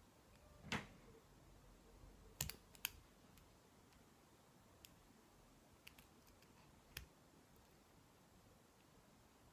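Sharp metallic clicks and ticks of a lock pick and tension tool working the pins of a Lockwood five-pin oval lock cylinder during single-pin picking. A louder click comes about a second in and a quick cluster of three follows around two and a half seconds, then scattered lighter ticks.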